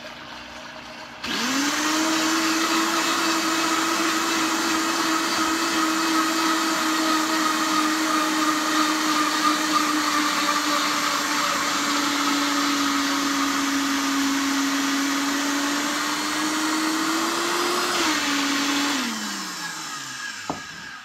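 Vitamix blender motor running at high speed while emulsifying mayonnaise, with oil being drizzled in. It is a steady, loud whine that starts abruptly about a second in. Its pitch sags a little, then rises shortly before it is switched off, and it winds down with a falling pitch. The change in sound marks the mayonnaise being basically done mixing.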